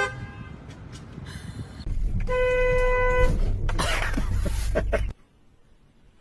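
A car horn honks briefly at the start, then gives a longer steady honk of about a second a couple of seconds in, over the low rumble of a vehicle. Everything cuts off suddenly about five seconds in.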